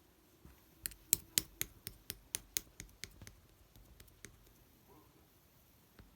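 Green slime being squeezed and pressed by hand, making a run of sharp popping clicks, about four a second, loudest just after a second in and fading over the next few seconds, with a few scattered pops after.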